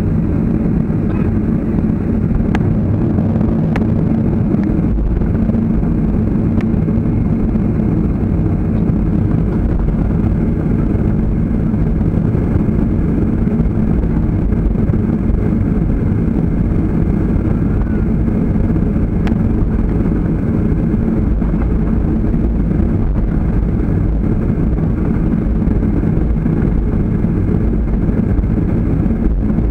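Steady cabin noise of a jet airliner taxiing, heard from inside by the window: the engines' low hum and rumble at taxi power, holding an even level, with a few faint clicks.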